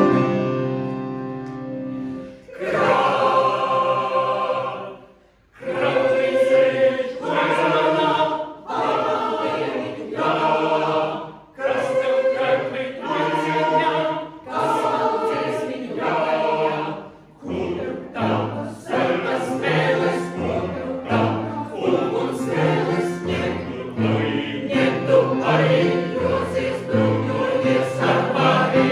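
Mixed choir singing, in phrases broken by short pauses, starting suddenly on a full chord. In the second half a low bass line moves in steps beneath the voices.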